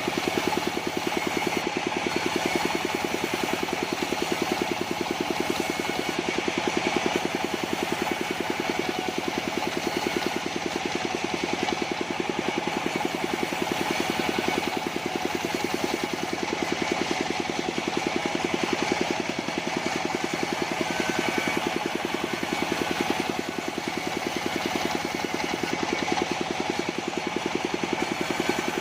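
Engine of a portable sawmill running steadily, with an even, fast firing beat.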